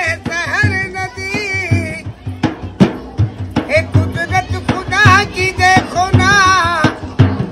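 A man singing with long, wavering held notes while beating a steady rhythm on a steel-shelled hand drum.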